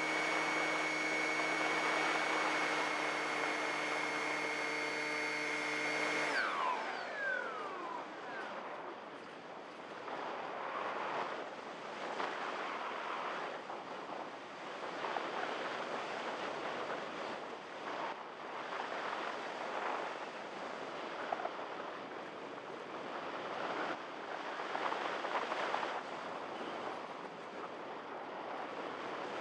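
Electric pusher motor of a Multiplex EasyStar RC plane whining steadily; about six seconds in it cuts and winds down with a falling whine. After that, wind rushes over the airframe and onboard microphone as the plane glides unpowered.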